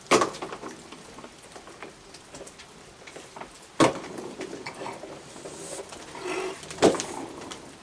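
A crowd of raccoons feeding on a wooden deck: a scatter of small clicks and patter from paws and eating, broken by three sharp knocks, one at the start, one near the middle and one near the end.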